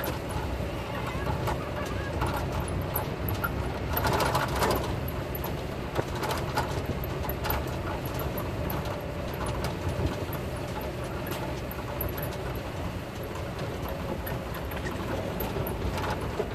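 Steady low rumble of a slow-moving motor vehicle's engine and road noise, with scattered light ticks.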